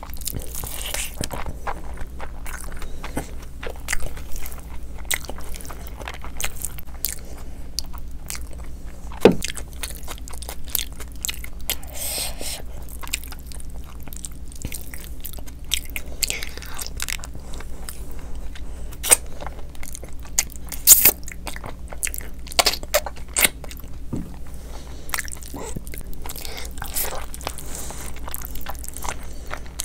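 Close-miked eating sounds: wet chewing and lip smacks of rice and mutton curry eaten by hand, with scattered sharp clicks and crunches as meat is bitten from a mutton bone. A steady low hum runs underneath.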